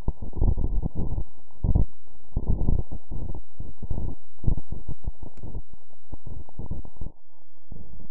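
Infrasound from a departing tornado, recorded at close range and sped up ten times into the audible range: a low, pulsing roar full of rapid, uneven throbs, with a brief dip about seven seconds in.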